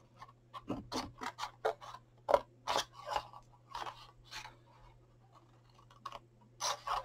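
Scissors snipping through black cardstock in a string of short cuts, pausing for a couple of seconds before a few more snips near the end.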